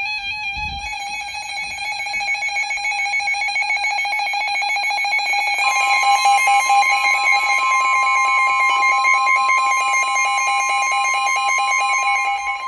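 NOAA Weather Radio emergency alert: a rapidly pulsing electronic alarm tone, joined about halfway through by the steady 1050 Hz warning alarm tone that signals a warning is about to be read. Both tones cut off near the end, just before the voice announcement.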